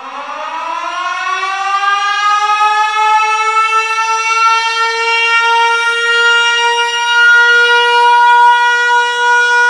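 Air-raid siren winding up: one tone rising slowly in pitch and loudness for about five seconds, then holding steady.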